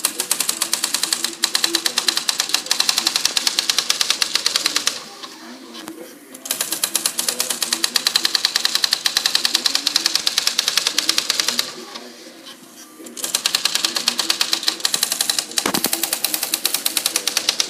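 Typewriter striking in a rapid, even, machine-gun-like stream of clicks, far faster than normal typing, in three runs of about five seconds each with short pauses between them, as if the machine were glitching.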